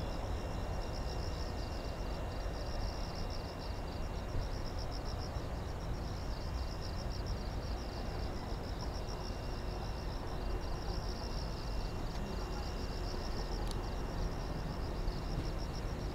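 Insects chirping in rapid, even, high-pitched pulses without a break, over a steady low outdoor rumble. One sharp click late on.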